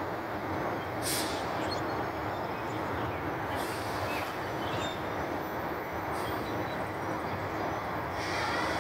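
Front-loader garbage truck, a Heil Half Pack Odyssey, with its engine running steadily, plus a few faint short hisses.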